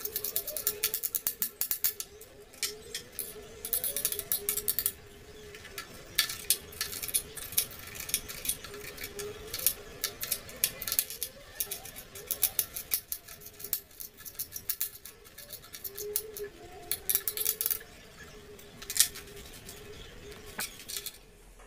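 Chef's knife chopping bell peppers on a wooden cutting board: quick runs of sharp taps on the board, broken by short pauses between runs. Faint background music plays underneath.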